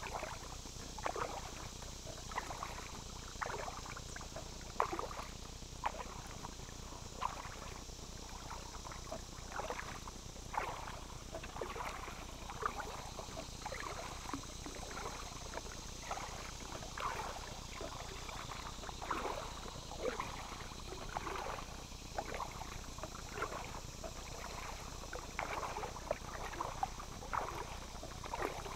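Kayak paddle blades dipping and pulling through calm water, each stroke a short splash and drip, about one a second. Under it runs a steady high buzz of insects.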